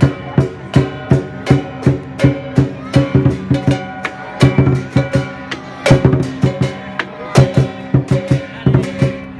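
Music with a steady beat of about two to three strikes a second over sustained pitched chords.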